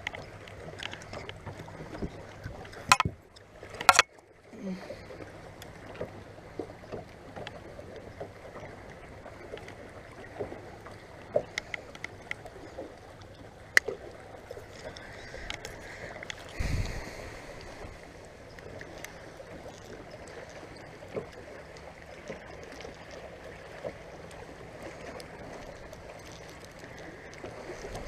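Sounds of a fishing boat on the water: a steady low hum with scattered clicks and knocks. Two sharp knocks come about three and four seconds in, and a dull thump a little past the middle.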